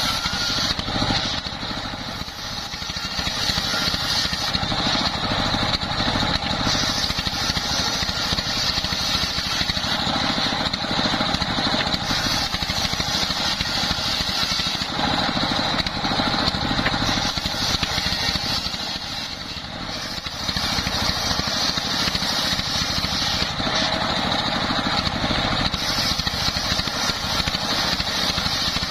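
Large circular saw blade ripping a log lengthwise on a sawmill table, over the steady running of the stationary engine that drives it by belt. The sound eases briefly twice.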